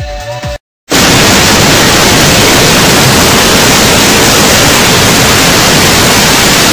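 Dance-pop music cuts off under a second in; after a brief gap, loud, steady TV static hiss.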